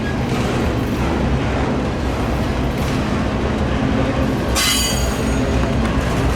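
Freight train passing with a steady rumble, and a brief high-pitched wheel squeal about four and a half seconds in.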